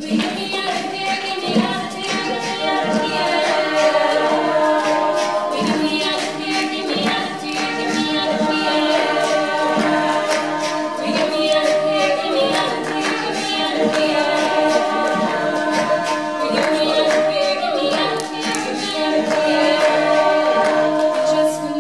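Mixed-voice a cappella group of women and men singing in close harmony over a steady, regular beat.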